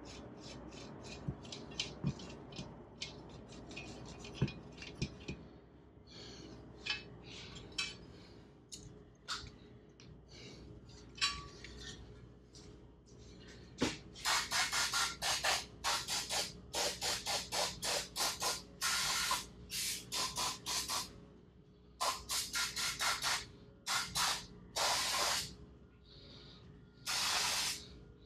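Compressed-air blow gun fired in many short hissing bursts, two or three a second with brief pauses, through the second half, blowing debris out of the inside of an engine's oil tank cover. Before that, quick light rubbing strokes from a rag wiping the cover.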